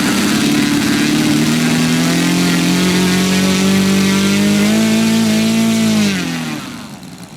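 Saito FG-90R3 three-cylinder radial gasoline engine of a large RC biplane being run up: the revs climb steadily for a few seconds, hold at high throttle, then fall away to a much quieter low-speed run about six seconds in.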